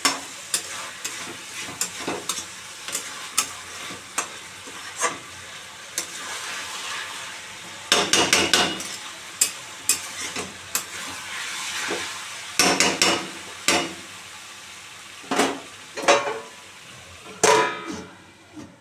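Chicken and sliced onions sizzling in oil in a kadhai, stirred with a metal spatula that scrapes and clinks against the pan again and again. Near the end a steel plate is set over the pan as a lid with a ringing clank.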